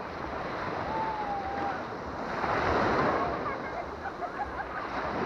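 Small Baltic Sea waves breaking and washing up a sandy shore, the surf swelling louder a little over two seconds in.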